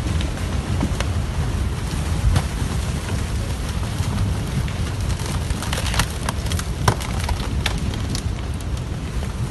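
Debris flow of mud, logs and boulders moving past: a steady low rushing noise with scattered sharp knocks, most of them between about six and eight seconds in.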